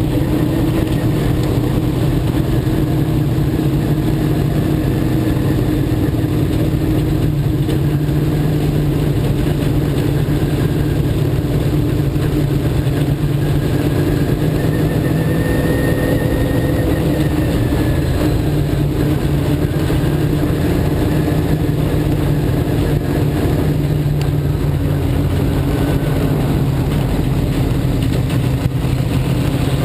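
Dirt-track sportsman modified race car's V8 engine, heard from inside the car, running hard and steady under racing load, its pitch rising and falling a little through the laps.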